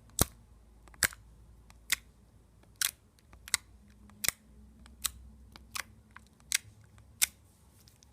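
Slime being pressed and played with by hand, giving sharp clicking pops at a steady pace, about ten of them, roughly one every three-quarters of a second.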